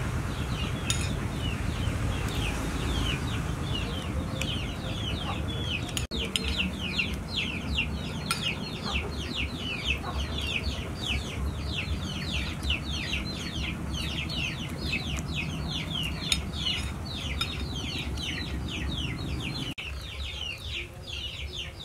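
Chickens peeping in a rapid, unbroken run of high, falling chirps, about three a second, over a steady low rumble.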